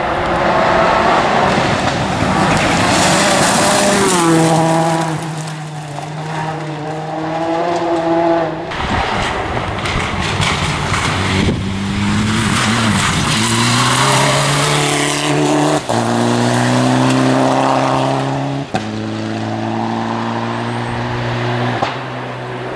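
Rally car engine driven hard at full throttle, rising in pitch and then stepping down at each of several gear changes. Around the later shifts the sound briefly cuts out.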